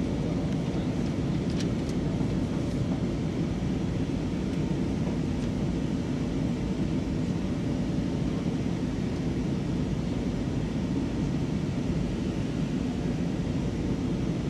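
Steady cabin noise inside an Airbus A320-232 airliner in descent: a deep, even rush of airflow mixed with the drone of its IAE V2500 engines, with a faint steady hum running under it.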